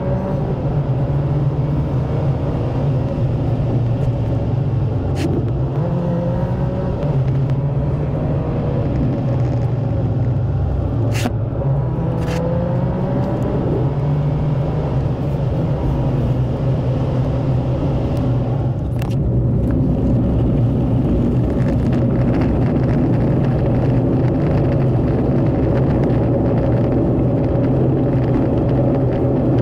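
Car engine and tyre noise heard from inside the cabin while driving, the engine note stepping up and down a few times in the first half and then holding steady. A few sharp clicks or knocks come through now and then.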